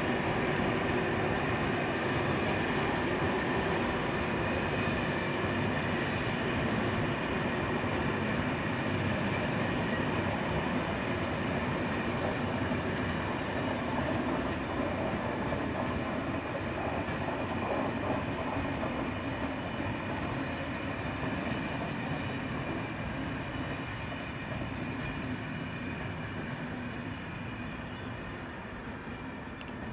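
A train running along the tracks through a station: a steady rail rumble with a faint high whine above it, slowly fading away over the last ten seconds or so.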